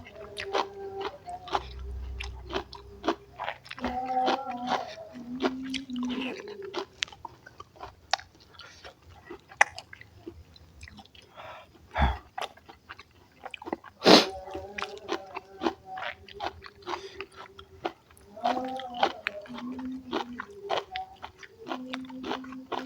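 Close-up chewing and mouth smacking of someone eating a mukbang meal of rice with spicy stir-fried napa cabbage, with many quick wet clicks and a couple of sharper clicks about halfway through. A low hum comes and goes underneath.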